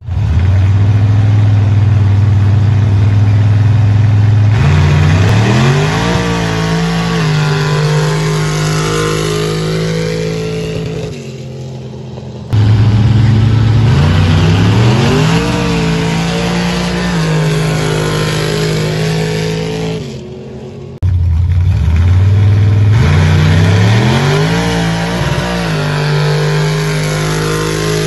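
472 cubic-inch big-block Ford V8 in a pickup making three full-throttle sand-drag runs. Each time the engine holds steady revs at the line, then the revs climb, dip briefly at a gear change, hold high and fade as the truck pulls away down the strip.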